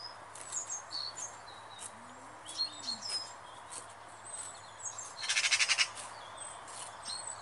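Small birds chirping and whistling in short high notes, and about five seconds in a magpie's harsh, rapid rattling chatter lasting under a second, the loudest sound.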